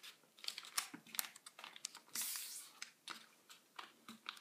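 A sheet of A4 paper being folded and creased by hand on a desk. It gives irregular crinkles and small sharp clicks as the fold is pressed down, with a longer rustle about two seconds in.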